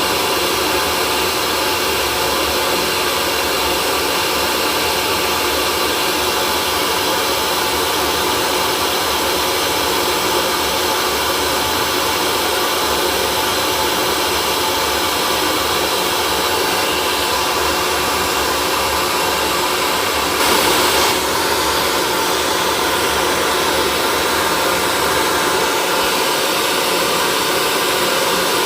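Electric hair dryer running continuously, a steady rushing whir of fan and motor with a faint even whine. It swells briefly louder about twenty seconds in.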